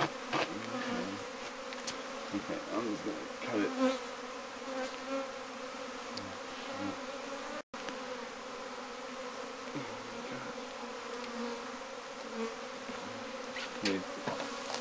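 Honeybees buzzing in a steady hum around an open hive, with single bees now and then flying close by, their pitch rising and falling as they pass. The sound cuts out for an instant about halfway through.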